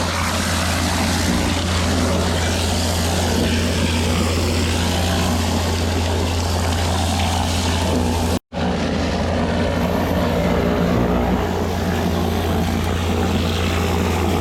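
A machine engine running steadily at a constant speed, a deep hum under a wide noisy wash, with a momentary cut to silence a little past halfway.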